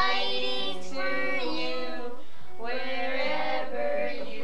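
Young children singing a slow Christmas carol together, holding each note, with a short breath break about two seconds in.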